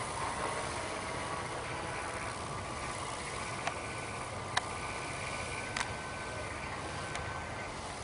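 Large quadcopter drone's electric motors and propellers humming steadily overhead as it flies forward, with a faint high whine joining about halfway through. A few short sharp clicks stand out in the middle of the hum.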